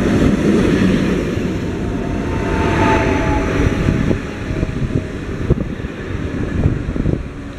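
Double-deck electric passenger train running past and moving away: a steady rumble of wheels on rail with a faint motor whine, then scattered sharp knocks as the sound eases off in the second half.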